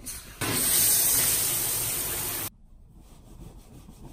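Water from a bathtub faucet turned on and running hard, a steady rushing hiss that starts about half a second in and cuts off suddenly after about two seconds. Faint rubbing of a towel follows.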